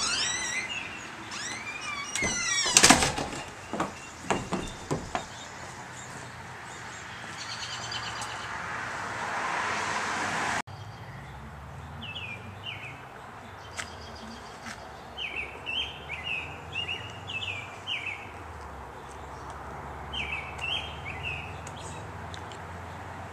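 A wooden front door creaking open, with a few sharp knocks. After an abrupt cut about ten seconds in, birds give short repeated chirps over a low steady rumble.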